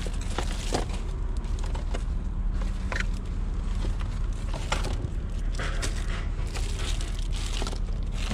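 Plastic bags and packaging rustling and crinkling as a gloved hand rummages through trash in a metal dumpster, with scattered short clicks and knocks, over a steady low rumble.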